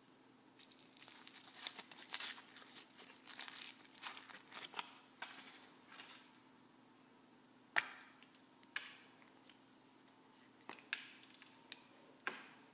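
Thin foil wrapper of a Kinder Surprise egg crinkling and tearing as it is peeled off, for about five seconds. Then a few separate sharp snaps as the chocolate shell is cracked open around the plastic capsule.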